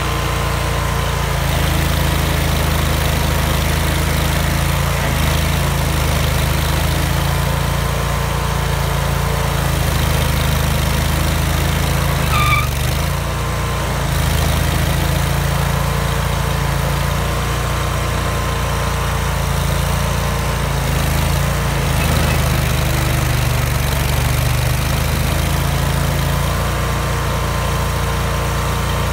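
Vermeer stump grinder's engine running steadily while the cutter wheel grinds a stump, its note sagging briefly and recovering every few seconds as the load changes.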